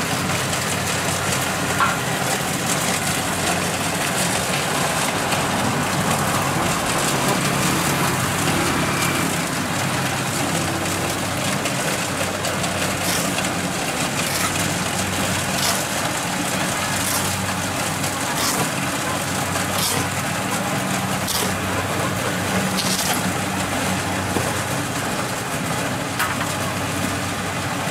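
Kubota DC-70 Plus combine harvester's diesel engine running steadily as the machine cuts and threshes rice. A light, regular ticking about every second and a half runs through the middle stretch.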